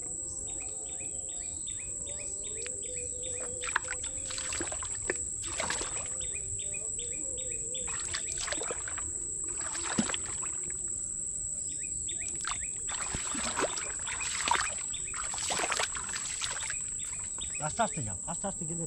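Mangrove creek ambience. An insect drones steadily at a high pitch, and a bird gives quick runs of chirps several times. Wet squelches and splashes sound in the mud and shallow water, most of them in the second half.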